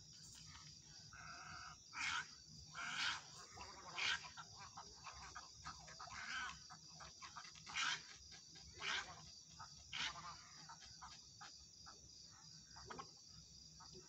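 Egrets giving a series of short calls, the loudest ones coming about a second or so apart for most of the stretch, over a steady high buzz of insects.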